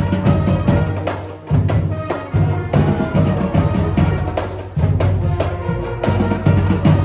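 High school marching band playing live: trumpets and clarinets carry the tune over a steady beat of marching drums.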